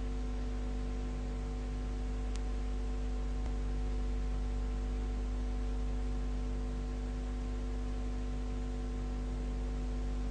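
Steady electrical mains hum with several steady tones over an even background hiss, the noise floor of an old recording. One faint click comes about two and a half seconds in.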